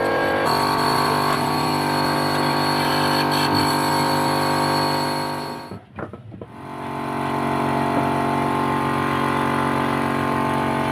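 Large electric wood router running steadily with a high whine. About six seconds in the sound drops away briefly, then builds back up to a steady run.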